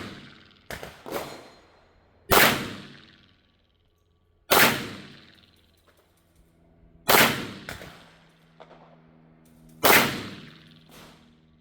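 Four shots from a .410 revolver shotgun firing slugs, spaced roughly two and a half seconds apart, each with a short echoing tail, and a few fainter pops between them.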